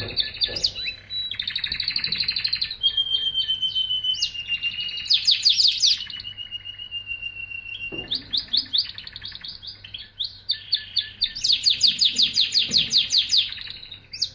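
Canary singing a long, unbroken song: fast rattling trills alternate with long held whistled notes, and the song cuts off abruptly at the end.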